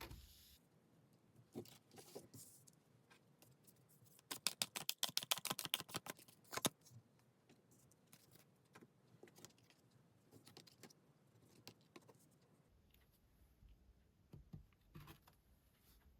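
Tarot cards being handled and shuffled: faint scattered clicks and taps, and about four seconds in a quick run of sharp card clicks lasting a couple of seconds.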